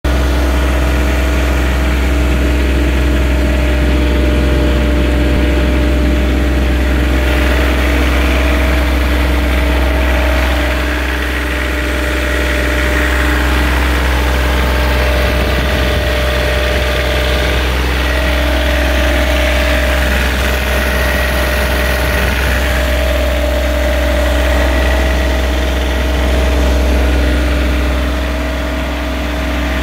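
The Kubota D1803 three-cylinder diesel engine of a BOMAG BW 120 AD-5 tandem roller running steadily, with a deep, even rumble and a steady hum.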